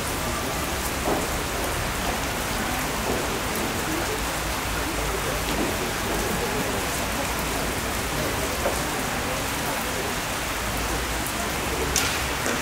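Steady rain falling, an even hiss. Near the end a single sharp snap from a kyudo longbow's string on release.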